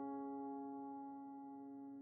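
Background music: a piano chord ringing on and slowly fading.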